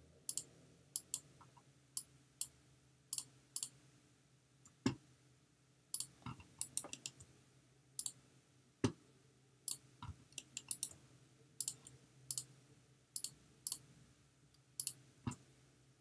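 Irregular clicking from a computer mouse and keyboard, one to three clicks a second, with a few louder, deeper clicks, over a faint steady hum.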